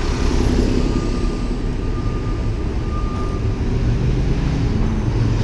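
Wind rushing over the microphone of a camera on a moving bicycle, with city traffic and a bus running close by: a steady, loud, low rumble.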